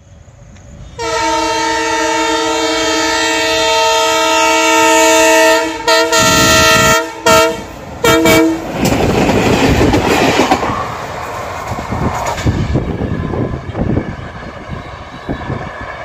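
WDM3A ALCO diesel locomotive's multi-tone horn: one long blast of about five seconds, then three short toots. The locomotive and its coaches then pass close by with a heavy rumble and wheel clatter that eases off near the end.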